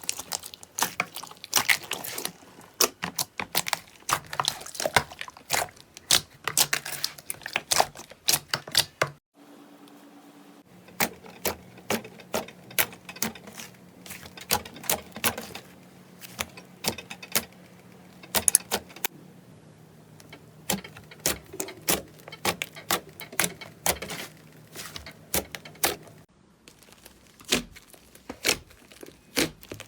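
Slime being squeezed and poked by hand, a dense run of sticky clicks and crackling pops, with a short pause about nine seconds in and a quieter spell near the end.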